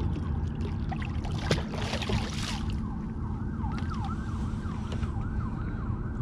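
A siren in the distance yelping, its pitch sweeping quickly up and down about two and a half times a second, over a steady low hum. A few clicks and rustles come in the first half before the yelping starts.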